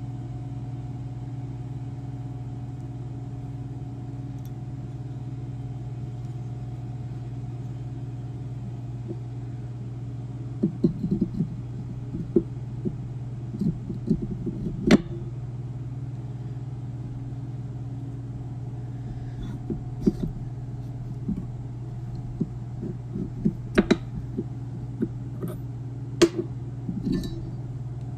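Steady low machine hum with scattered clinks and knocks of metal transmission parts being handled: a TH400 clutch drum, piston and aluminium piston-installer cup set down and moved on a metal bench. The knocks come in two clusters, about a third of the way in and again in the last third.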